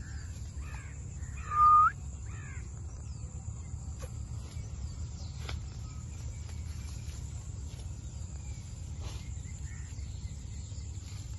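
Parrot calls: a few short harsh squawks in the first three seconds, with one louder drawn-out call that rises at its end about a second and a half in. After that only a low steady background rumble and an occasional faint click.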